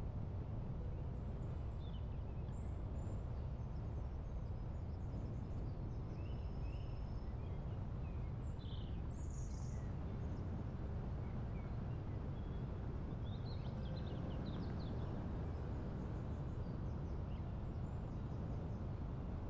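Small birds chirping and trilling in short scattered calls over a steady low wind noise.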